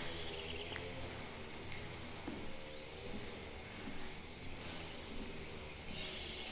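Quiet background ambience with a few faint, brief, high bird chirps, the clearest about halfway through.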